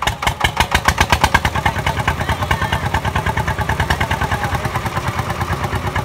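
Small engine on a portable rice-threshing machine starting up and then running with a rapid, even pulsing beat, louder in the first second or so before it settles.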